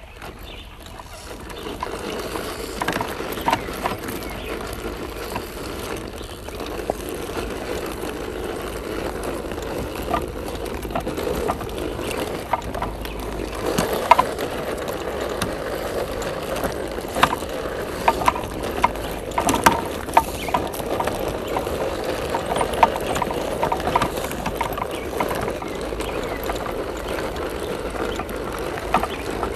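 Scale RC crawler truck's electric motor and geared drivetrain whirring as it crawls over cracked, dried mud, with irregular clicks and crunches from the tyres on the clods. It grows louder about a second in.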